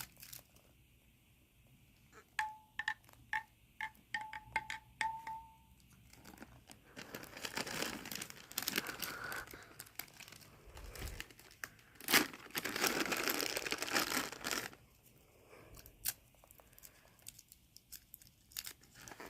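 A quick run of light clinks with a faint ringing tone, then candy wrappers crinkling and tearing in two long stretches as a cough drop and a Caramel Apple Pop lollipop are unwrapped, with one sharp click between them.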